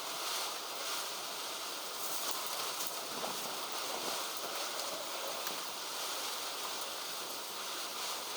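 Steady wind noise on the microphone, a constant rushing hiss, with a few faint clicks.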